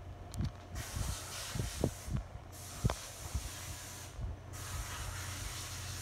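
Arno Ultra Silence Force electric fan running, a steady rush of air over a low hum; the air hiss drops out briefly twice, about two and four seconds in. A few soft knocks sound in between.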